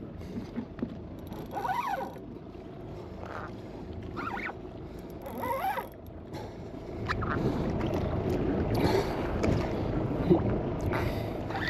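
Fishing boat under way at sea: steady engine and water noise against the hull, growing louder about halfway through, with a few short squeals that bend up and down in pitch in the first half.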